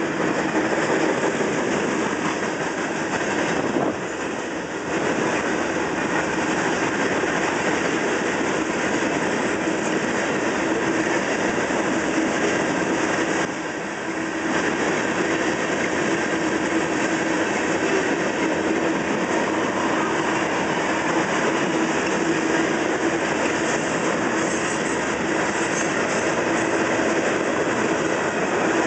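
Freight train of covered hopper cars rolling past a grade crossing: steady noise of steel wheels on the rails, with a faint held tone under it. The sound dips briefly twice, about 4 and 13 seconds in.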